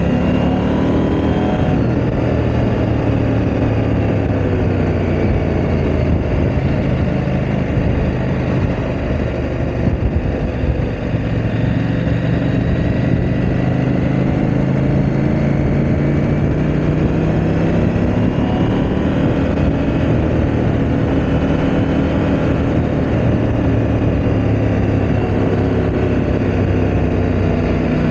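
KTM 890 Adventure R's parallel-twin engine running while the bike is ridden, its note falling and dipping about ten seconds in, then climbing steadily for several seconds and rising again near the end as the rider rolls on and off the throttle.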